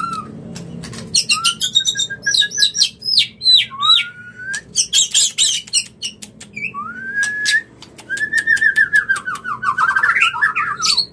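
White-rumped shama singing its mating call: loud rising whistles, quick falling high notes and many sharp clicks, ending in a long warbling trill.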